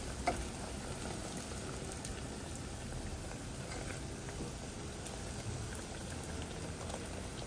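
Hot oil sizzling and bubbling steadily around pieces of battered stuffed tofu frying in shallow oil in a pot. There is one sharp click near the start as metal tongs turn the pieces.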